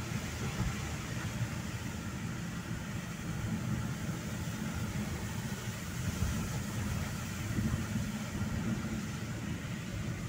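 Steady noise inside a car driving on a wet road in the rain: a low engine and tyre rumble with a steady hiss above it.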